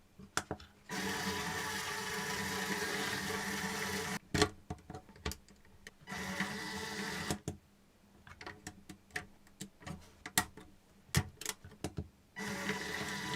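Plastic Lego bricks clicking and knocking as they are handled and snapped together, a scatter of sharp clicks. These alternate with stretches of steady humming noise that start and stop abruptly.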